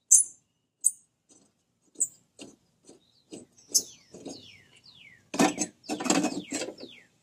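Metal clinks and rattles as the corroded blade bolts and cutting blade of a Honda HRC216 mower are worked loose and pulled off the spindle hub. There are sharp clicks in the first two seconds, a run of short falling squeaks in the middle, and a longer scraping rattle near the end.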